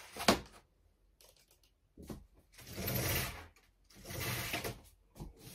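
Fabric roller blind being raised by its chain mechanism: a sharp click near the start, then two whirring, rattling runs of about a second each as the blind rolls up.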